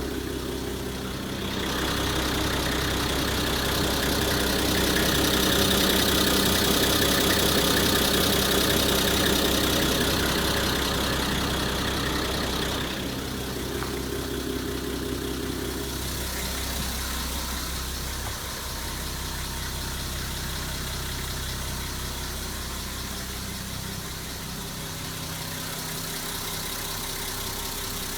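Nissan Civilian bus's TD42 straight-six diesel engine idling steadily, somewhat louder and hissier for roughly the first ten seconds, then quieter.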